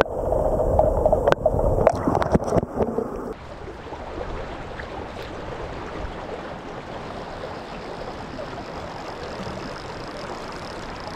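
Trout creek water flowing in a steady, even rush. For the first three seconds it is louder, with a rumble and a few sharp knocks that stop abruptly.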